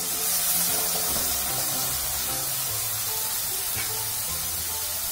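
Curd (yogurt) poured into a pan of hot oil and fried onion masala, setting off a loud, steady hiss of sizzling that starts suddenly as the curd hits the pan. Background music plays underneath.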